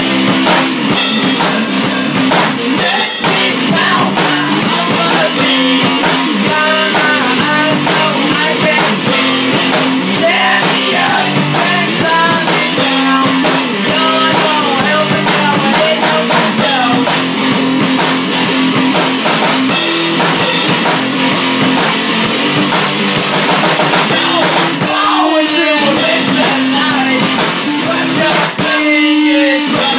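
Garage rock band playing: electric guitar over a drum kit keeping a steady driving beat. Twice near the end the drums and low end drop out briefly, leaving a short guitar fill.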